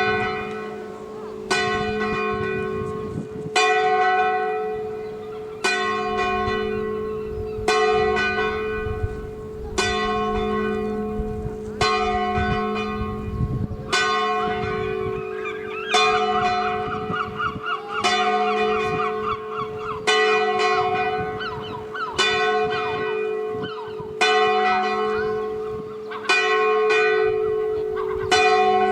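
A single swinging church bell tolling, struck about every two seconds, each stroke ringing on over a steady hum until the next. It is the bell rung to call people to a church service.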